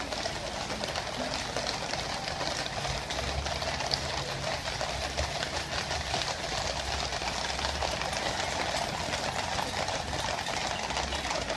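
Many cavalry horses trotting past on a wet road, their hooves making a steady, dense clatter, with a low rumble coming and going.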